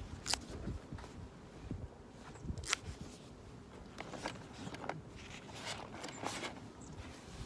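Wood fire crackling, with scattered sharp pops and ticks over a low rumble.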